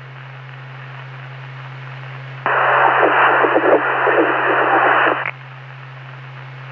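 Police scanner radio channel with a steady low hum under it. About two and a half seconds in, a transmission keys up carrying only loud static-like noise for nearly three seconds, then cuts off sharply, typical of an open mic on the channel.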